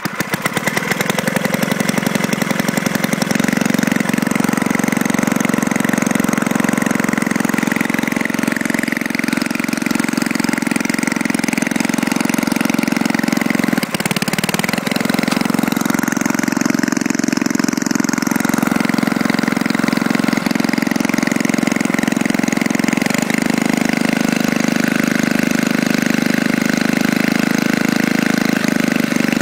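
Snowflite 5/24 snowblower's 5 hp engine coming up to speed about a second in, then running steadily, with one brief dip about halfway through. Its governor setup is, in the owner's words, a little bit not quite right.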